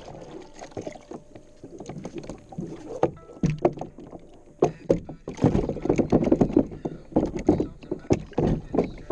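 Hobie MirageDrive pedal unit being lifted out of the kayak's hull well and set back in: repeated hard plastic knocks and clunks against the hull, busiest a little past the middle.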